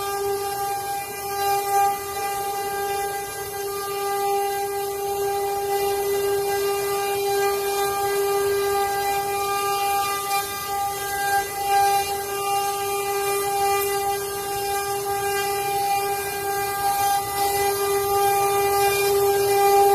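Multi-head CNC wood-carving router running, its spindles giving a steady, unchanging whine.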